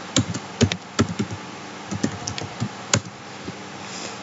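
Typing on a computer keyboard: irregular key clicks in quick runs, with a single sharper keystroke about three seconds in, over a faint steady hiss.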